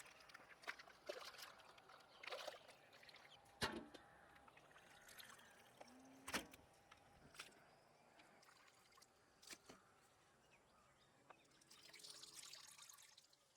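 Near silence with faint scattered clicks and knocks; two sharper knocks stand out, about three and a half and six seconds in.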